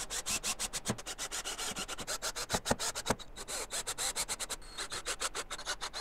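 Cordless drill work driving pocket-hole screws into a wooden table frame, heard sped up: a rapid, uneven run of short clicks and scrapes, several a second.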